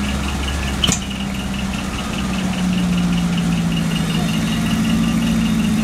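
Decorated truck's engine idling, its note dropping slightly and getting louder about two and a half seconds in. A rapid, high-pitched beeping repeats throughout, and a single sharp click comes about a second in.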